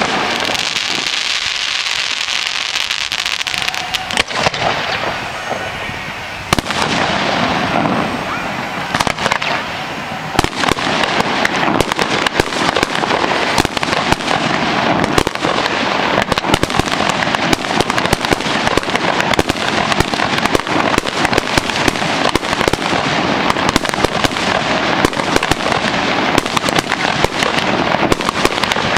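Fireworks display: aerial shells rising on hissing tails and bursting overhead. A rushing hiss fills the first few seconds, and from about ten seconds in there is a dense, continuous run of crackling pops.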